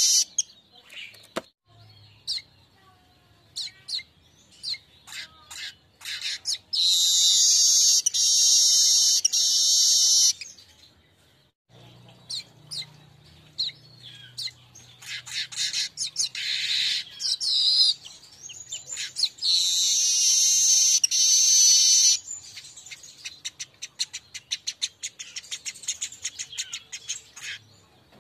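Weaver (manyar) song: long, wheezy, sizzling high-pitched phrases about six seconds in and again around twenty seconds, with rapid dry chips and chattering ticks between them and a fast run of ticks near the end.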